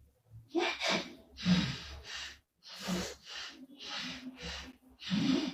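A woman snoring: an uneven run of rough, noisy breaths, roughly one a second, some with a low buzz underneath, the loudest about a second and a half in and near the end.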